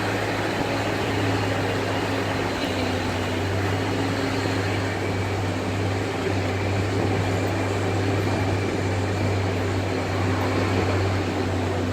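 Parking-lot tram's engine running steadily, a constant low hum over an even wash of road and wind noise, heard from on board.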